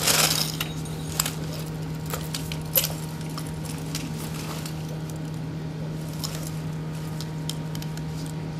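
SCBA pack and firefighter turnout gear being handled: a short rush of noise at the start, then scattered clinks of the harness's metal buckles and straps and rustling as the pack is swung overhead onto the back and buckled, over a steady low hum.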